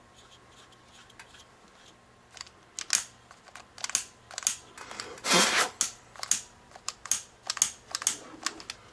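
Irregular sharp clicks and taps of tools and small objects being handled on a workbench, with one longer, louder rush of noise about five seconds in.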